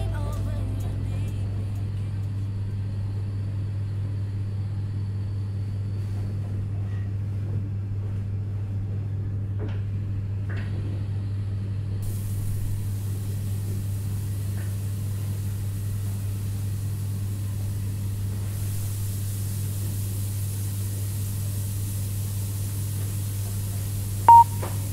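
A steady low hum with faint hiss. Near the end comes a short, high electronic beep, the first of a one-per-second countdown timer's beeps that mark the last seconds of a rest interval.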